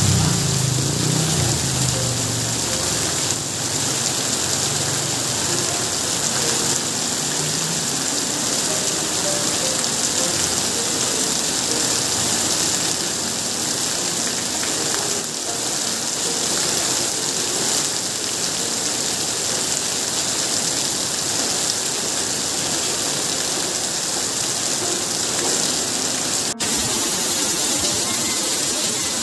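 Heavy rain falling steadily: a dense, even hiss of a downpour on leaves and pavement.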